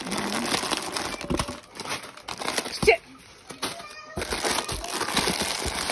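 Plastic snack packets crinkling and rustling in a cardboard box as they are handled, with a short rising-and-falling squeal about three seconds in.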